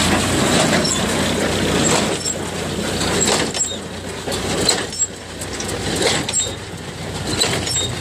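Jones small square baler running while baling straw: a steady mechanical clatter of its chain drives and moving parts, with sharp clanks every second or so.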